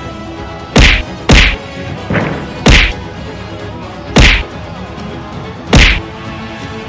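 Boxing punches landing with sharp, loud thwacks: five heavy blows and one lighter one, unevenly spaced over about five seconds.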